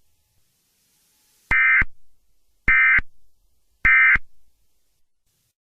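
Three short bursts of Emergency Alert System SAME data tones, the warbling digital end-of-message code sent after an alert. Each burst lasts about a third of a second, they come a little over a second apart, and a short echo trails each one.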